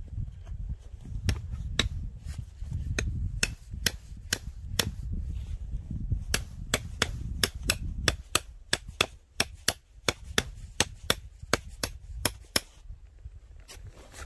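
A rapid, irregular series of sharp strikes over a low rumble, growing denser to about three a second in the second half, typical of an axe pounding tent stakes into frozen ground.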